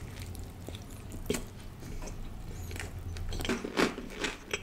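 Soft close-up eating sounds: a few wet mouth clicks and smacks from chewing, coming more often near the end, over a low steady hum.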